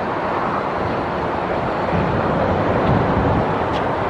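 Steady outdoor background noise of road traffic, with wind rumbling on the microphone between about two and three and a half seconds in.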